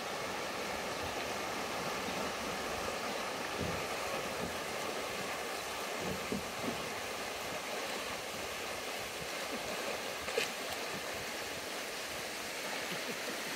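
Steady rush of a swollen, muddy creek running fast over a shallow riffle, the water high after rain, with a few brief faint clicks midway.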